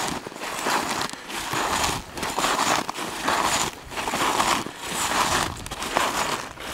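Snowshoes crunching through deep powder snow in steady walking steps, about one and a half crunches a second.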